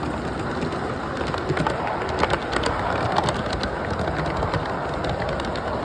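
A live-steam model locomotive and its train running past on the track, with a run of sharp clicks and ticks from the running gear and wheels over a steady hiss. The clicking is thickest about halfway through.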